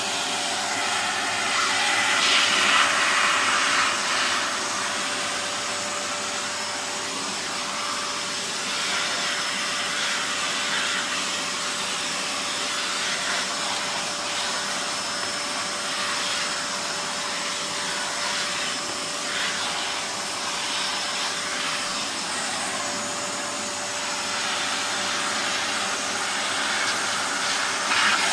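Miele S7000 upright vacuum cleaner running steadily: a constant motor whine over the hiss of rushing air, a little louder for a couple of seconds near the start.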